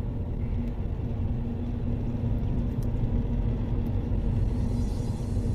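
Car driving at steady speed, heard from inside the moving car: a steady low rumble of engine and road noise with a faint steady hum.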